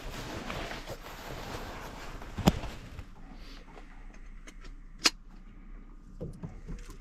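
Water lapping against a small fishing boat's hull, with a steady rush that fades after about three seconds. One sharp knock about halfway through is the loudest sound, followed by a second knock and a few light taps near the end.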